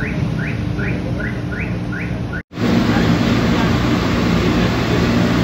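Street traffic noise with a rapid run of short rising chirps in the first half. After an abrupt cut about halfway through, a louder steady traffic hum.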